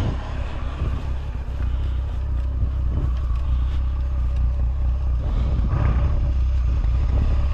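Steady low rumble of an idling vehicle engine, with a few faint clicks.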